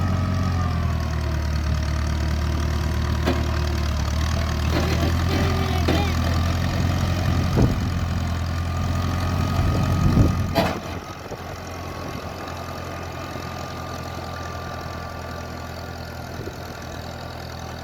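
An engine running steadily at a low pitch, with scattered knocks. After a loud clatter about ten seconds in, the engine sound drops and stays quieter.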